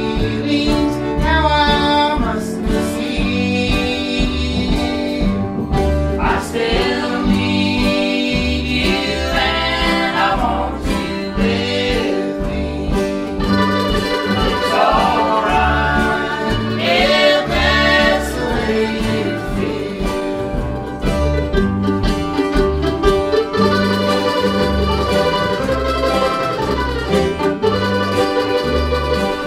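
Live acoustic bluegrass string band playing, with a male lead vocal over mandolin, guitar and upright bass keeping a steady beat. The singing stops about two-thirds of the way through and an instrumental break follows.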